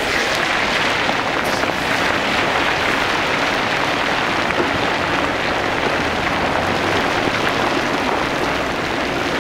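Chicken pieces deep-frying in hot oil: a steady, dense sizzle.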